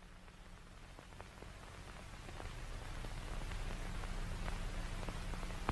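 Static hiss with a low electrical hum and scattered crackles, growing steadily louder.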